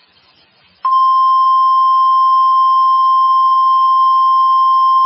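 NOAA Weather Radio 1050 Hz warning alarm tone: one steady, high, unbroken beep that starts about a second in. It is the alert signal broadcast ahead of a tornado warning, sounded here for a tornado drill.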